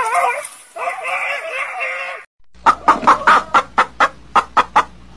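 A wavering cry in the first two seconds, then chickens clucking in a quick run of short, sharp calls, about five a second.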